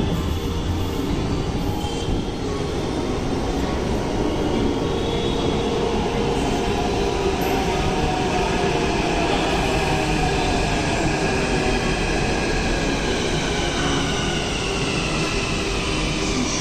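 Two Hyderabad Metro electric trains pulling into the station: a steady rumble of wheels and running gear, with whining tones that slide in pitch as the trains come in to stop.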